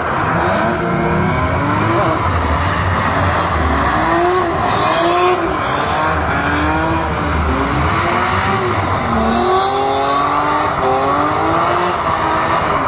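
BMW car doing doughnuts: the engine revs rise and fall over and over, about once a second, as the rear tyres spin and smoke, with tyre noise under it.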